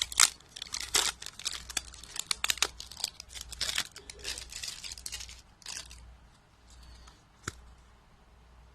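Plastic packaging crinkling and tearing in dense crackles as a container of isopods is worked open by hand, easing off after about six seconds, with a single sharp click near the end.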